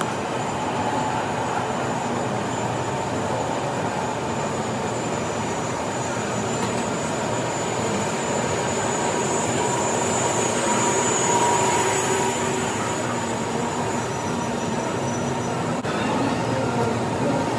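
Steady, dense din of warehouse machinery, conveyor belts and packing machines running, with a thin steady high whine over it.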